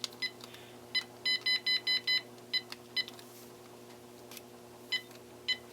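Sony SPP-N1000 cordless phone handset giving its key-press beep as its buttons are pressed one by one: about a dozen short beeps, all at the same pitch, with a quick run of six a second or so in. Each beep shows that a repaired button is registering.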